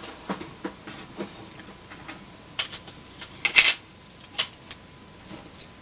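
Small plastic parts of an SJ1000 action camera being handled and fitted together by hand: scattered light clicks and taps, with a louder cluster of sharp clicks about three and a half seconds in.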